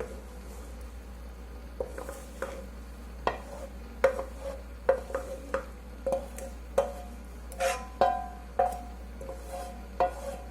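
A spoon stirring in a metal cooking pot, knocking against it at irregular intervals roughly once a second, each clink ringing briefly.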